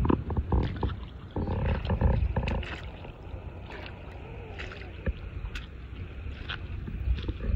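Wind rumbling on the phone microphone, with scattered crunching steps on dry seagrass and coral rubble.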